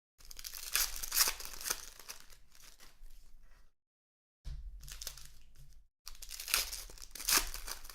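Foil trading-card pack wrappers being torn open and crinkled by hand, in two bouts of crackling with a short pause between.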